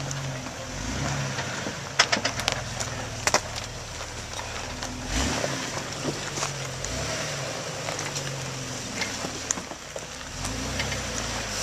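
Jeep Wrangler engine running at low speed as it crawls up a rocky trail, its revs rising and falling in steps, with a few sharp knocks about two and three seconds in.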